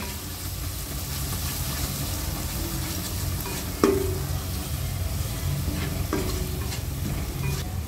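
Spatula stirring a thick tomato-and-potato masala in a non-stick pan as it fries and sizzles on a low flame. Two light knocks of the spatula against the pan come about four and six seconds in.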